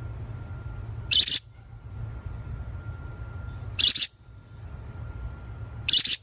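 A small featherless parrot gives three short, high-pitched calls, roughly two and a half seconds apart, over a low steady hum.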